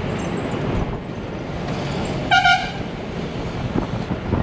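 Bus engine and road noise from a moving bus, with one short, high horn toot about halfway through.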